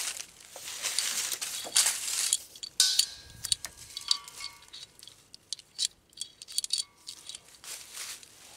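Rustling handling noise for the first couple of seconds, then a run of light metallic clinks and taps, some with a short ring, as the propane hose and its fittings are handled.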